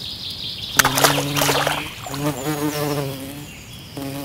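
Cartoon bee buzzing sound effect: a low, pitched buzz in several stretches, with a brief splashy burst about a second in.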